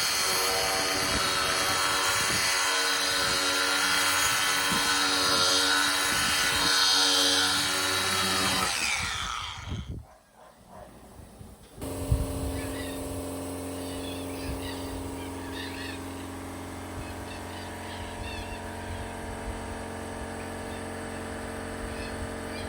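Cordless power sander running steadily as it sands paint off a fibreglass boat's bow, then winding down and stopping about ten seconds in. After a brief pause a quieter steady machine hum starts and runs on.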